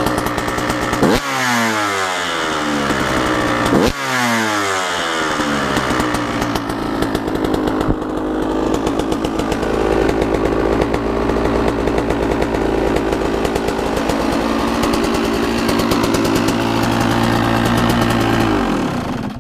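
KTM SX 125 two-stroke dirt bike engine, blipped twice in the first four seconds with the revs falling back after each, then idling steadily. The engine cuts off just before the end.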